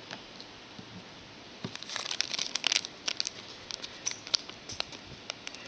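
Trading-card pack wrapper crinkling and cards rustling as they are handled. The run of light, irregular crackles starts about a second and a half in.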